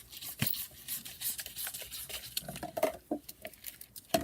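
A utensil stirring and scraping in a dish, with quick irregular clicks, soft rubbing and a few louder knocks against the dish.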